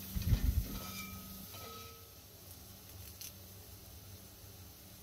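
Metal spoon stirring thick onion-tomato masala in a pot: a few soft, low, squishy stirring sounds in the first second, then only faint stirring.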